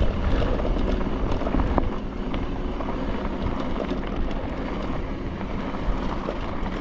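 Mountain bike rolling down a dirt trail: wind rushing over the microphone and the tyres on the ground, with scattered clicks and rattles from the bike.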